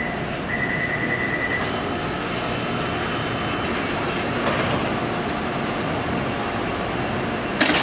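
Taipei Metro train at the platform: rapid door-closing warning beeps stop about a second and a half in, followed by a steady hum from the standing train. Near the end there is one loud slam as the driver's cab door is shut.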